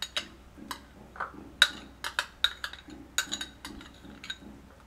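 A metal spoon scraping and clinking against the rims of a ceramic bowl and a glass bowl as mustard paste is scooped from one into the other: a quick, irregular run of light taps and clinks, some with a short ring.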